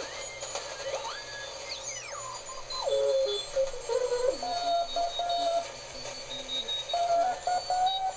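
Homebrew two-tube (1T4 detector, 3V4 audio) regenerative shortwave receiver tuned across the 40-meter band through a small amplified speaker. Heterodyne whistles slide up and down in pitch during the first few seconds as the dial moves across signals. Then steady tones keyed on and off like Morse code come and go.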